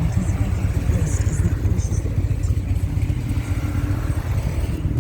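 Motorcycle engines rumbling steadily as a mass convoy of bikes rides past.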